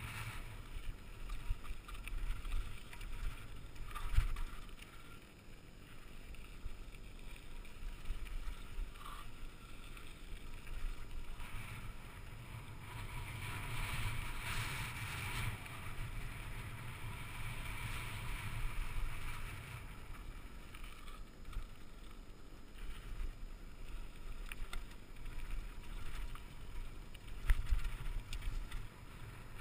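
Mountain bike riding fast down a dirt singletrack: a steady rush of wind and tyre noise, with knocks from bumps, the sharpest about four seconds in and near the end.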